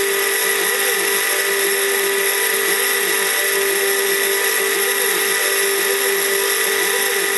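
High-speed spindle motor of a small CNC PCB mill running steadily, with a constant high whine over a lower hum that wavers up and down.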